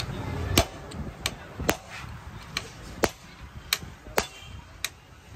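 Hammer tapping metal at the clutch centre of a Honda CD 100 engine: about eight sharp strikes at an uneven pace.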